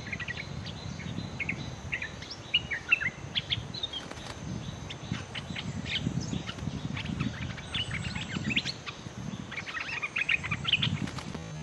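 Bulbuls calling back and forth in rapid runs of short, harsh chirps and chattering notes: a caged decoy bulbul scolding a wild bulbul that has come to its cage. The calls come in clusters, thickest about three seconds in and again near the end.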